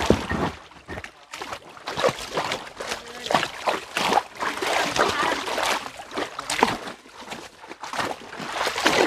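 Muddy water splashing and sloshing in irregular bursts as people wade chest-deep and beat the surface to drive fish toward a net.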